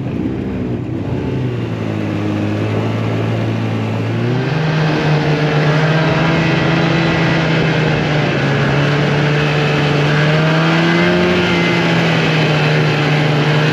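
Polaris 550 snowmobile's two-stroke engine running under way. About four seconds in its revs step up, then it holds steady at the higher speed.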